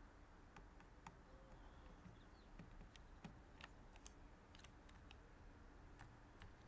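Faint, scattered clicks and taps of jackdaws' feet and beaks on a plastic dog puzzle feeder, most of them in the middle of the stretch, over a low steady hiss.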